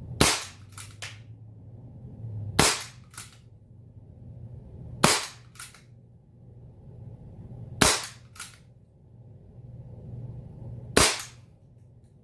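Daisy Model 44 CO2 air pistol firing .177 pellets: five sharp shots about two and a half to three seconds apart, each followed by one or two fainter clicks.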